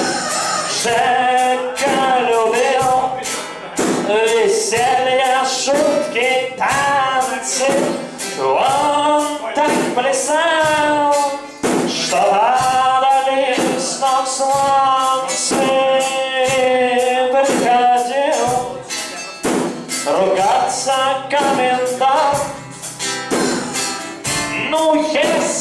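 A man singing a song into a microphone over a strummed acoustic guitar, played live.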